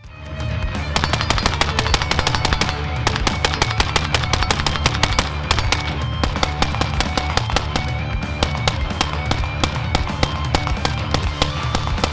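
Loud rock music with fast, dense drumming and a heavy bass line comes in suddenly. Rapid fire from a suppressed Rifle Dynamics RD-74 AK rifle in 5.45×39mm is mixed in with it.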